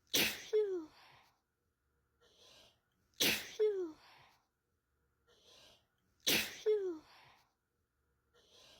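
A person sneezing three times, about three seconds apart, each sneeze identical: a faint inhale, then a loud, sharp 'achoo' whose voiced tail drops in pitch. It is one sneeze recording looped.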